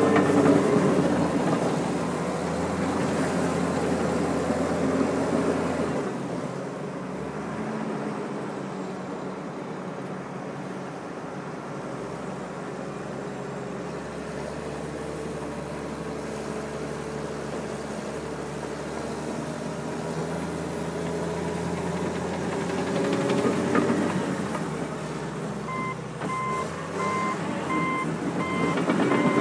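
John Deere 750J crawler dozer's diesel engine running under working load, loud at first, easing off after about six seconds and building again near the end. Near the end the dozer's backup alarm starts beeping steadily as it reverses.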